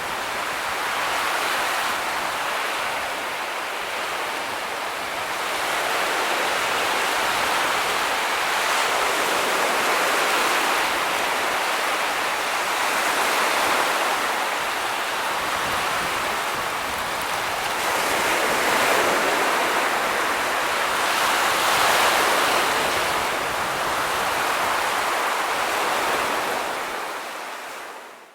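Ocean waves washing on a shore as a steady rushing noise that swells and eases every few seconds, fading out near the end.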